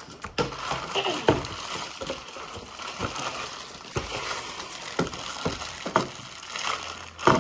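A clear plastic bag full of small slime-kit containers crinkling and rustling as it is handled, with light knocks of plastic on a tabletop about once a second.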